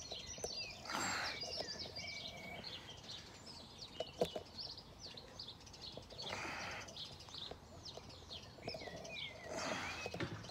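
Wild birds singing, a busy chorus of short chirps and whistles, with a few brief rustles and a sharp click about four seconds in.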